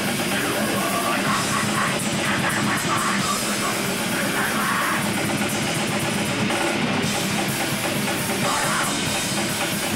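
Live grindcore band playing at full volume: distorted guitars, bass and fast drums, with the vocalist shouting into the microphone.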